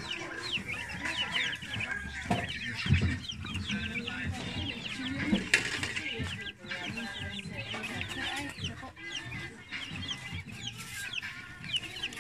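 Chickens clucking and chirping, many short calls overlapping continuously.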